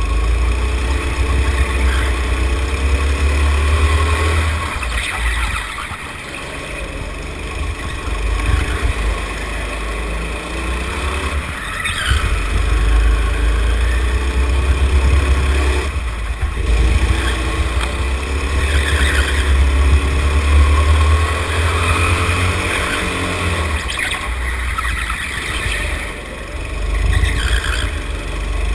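Go-kart engine heard on board, its pitch rising and falling again and again as the throttle is opened and lifted through the corners, over a heavy low rumble.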